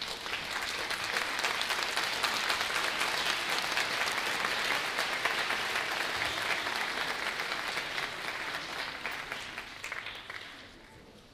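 Audience applauding in a concert hall: dense clapping that swells in the first second or two, holds steady, and fades away near the end.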